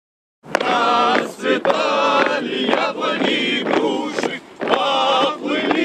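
Group of voices singing a marching song in chorus, starting about half a second in, with a brief break between lines just before the fifth second. A few sharp knocks sound now and then.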